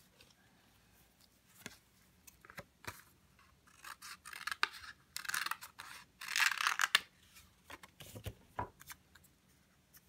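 Scissors cutting a curve in white paper, with three cutting runs between about four and seven seconds in and light paper-handling clicks and rustles around them.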